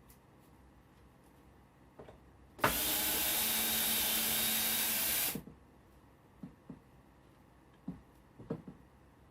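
A power drill runs at a steady speed in one burst of about three seconds that starts and stops abruptly, most likely working a screw in the bowed 2x4. A few light clicks and knocks follow.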